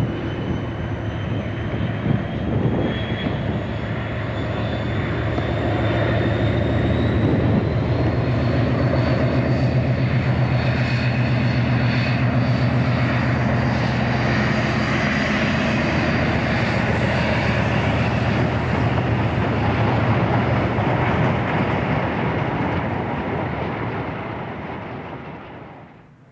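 British Rail Class 56 diesel-electric locomotive, with its Ruston-Paxman V16 engine, working under power at the head of a loaded coal hopper train as it approaches and passes, over the rumble of the wagons. A high whine rises slowly in pitch as it comes by. The sound swells to its loudest in the middle and fades away near the end.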